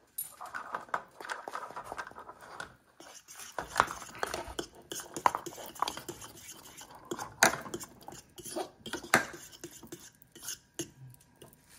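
A utensil stirring dry flour in a bowl, with irregular clinks and scrapes against the bowl.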